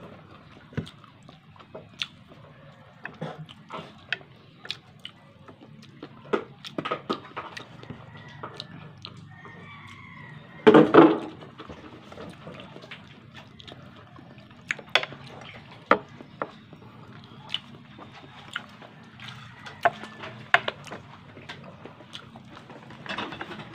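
Close-up wet eating sounds from a person eating chicken feet adobo and rice by hand: scattered short smacks and clicks of chewing and lips, with one louder wet burst lasting under a second about eleven seconds in.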